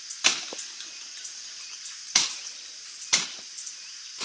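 Three sharp strikes: one just after the start, then two about a second apart later on, each dying away quickly. Behind them runs a steady high chirring of insects.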